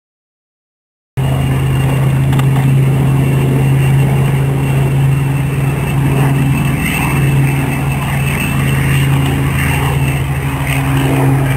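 Messerschmitt Bf 109E's piston aero engine running steadily as the fighter comes in low and touches down to land. It starts about a second in after silence.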